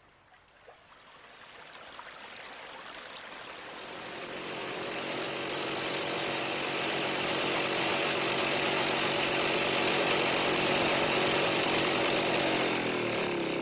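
Small buzzing engine of a jeep approaching. It grows louder over several seconds and runs steadily, then its pitch drops as it slows near the end.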